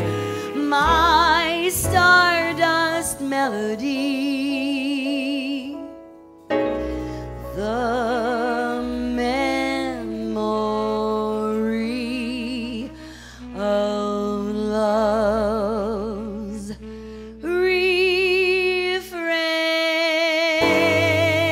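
Slow jazz ballad: a woman singing long held notes with wide vibrato, backed by a small jazz band with sustained bass notes. The music drops away briefly about six seconds in and again shortly before the end.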